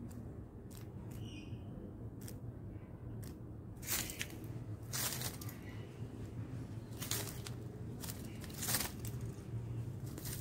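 Dry leaf litter rustling and crackling as a male common blackbird forages, flicking leaves and twigs aside with its bill: a few light ticks, then several louder bursts of rustling from about four seconds in.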